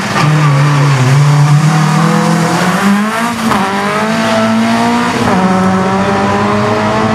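Rally car engine revving hard under acceleration, its pitch climbing steadily and dropping back at gear changes about three and a half and five seconds in.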